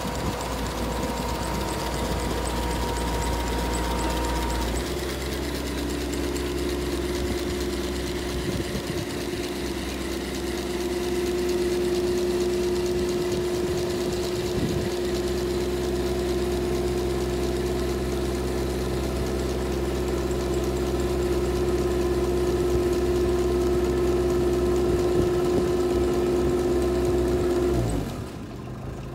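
Engine of a Berkenheger weed-harvesting boat running steadily. Its note changes about five seconds in, and near the end it winds down and quietens.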